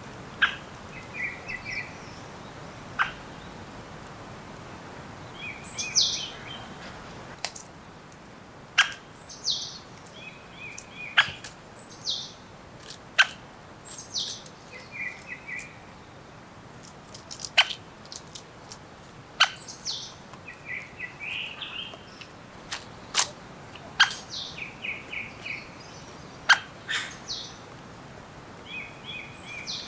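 Several songbirds calling in a forest: sharp, quick down-sweeping chips, short repeated trills and higher piping notes, scattered irregularly over a faint steady background hiss.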